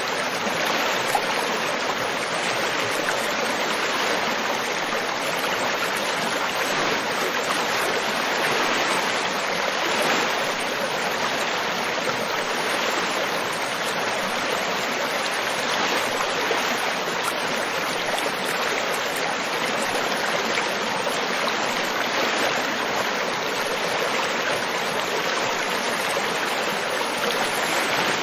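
River water flowing: a steady, even rush of water over rocks.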